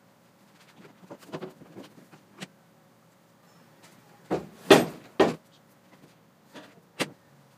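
A person walking in and opening a refrigerator door: scattered soft knocks and rustles in the first couple of seconds, a cluster of louder thuds about four to five seconds in, and a sharp click near the end.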